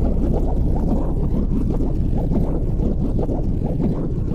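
Wind buffeting the microphone: a loud, low, fluttering rumble.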